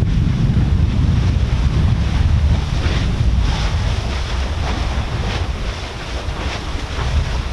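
Strong wind buffeting the microphone over the surf-like churning of an open lava lake, with several short splashes of spattering lava from about three seconds in.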